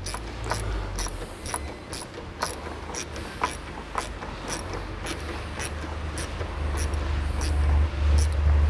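Hand ratchet clicking about twice a second as it tightens a worm-drive hose clamp on a transmission cooler hose. A low hum underneath grows louder near the end.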